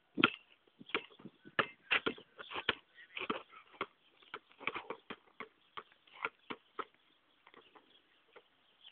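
Basketball dribbled on an asphalt court: a string of sharp bounces at an uneven pace, about two a second, thinning out near the end.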